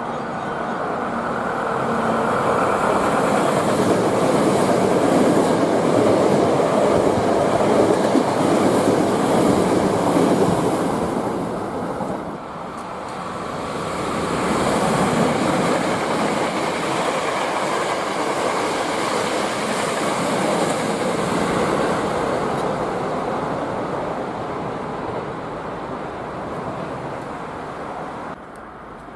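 Trains passing close by: a rush of wheel-on-rail noise that builds over the first few seconds, drops away about twelve seconds in, then swells again before fading near the end.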